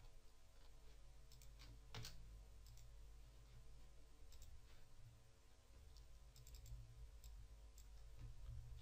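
Near silence over a low steady hum, with scattered faint clicks of a computer mouse. The loudest click comes about two seconds in, and a small cluster follows near the end.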